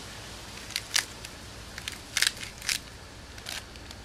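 Hand-held salt grinder being twisted, giving a string of short, sharp, irregular crunching clicks as the salt is ground.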